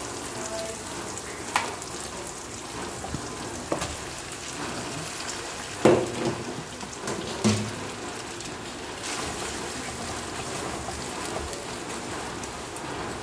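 Food sizzling in oil in a non-stick wok as it is stir-fried, a steady frying hiss with a few knocks of the spatula against the pan. The loudest knocks come near the middle, as a block of boiled rice vermicelli goes into the wok and is stirred.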